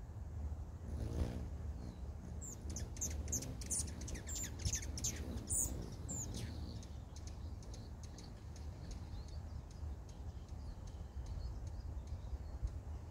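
Hummingbirds at a feeder: a brief whir about a second in, then a quick run of sharp, high chip notes over several seconds. Under it all is a steady low background rumble.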